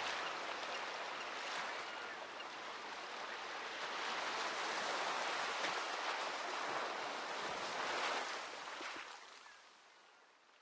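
Ocean surf washing on a shore, a rushing noise that swells and ebbs gently, then fades out to silence about nine seconds in.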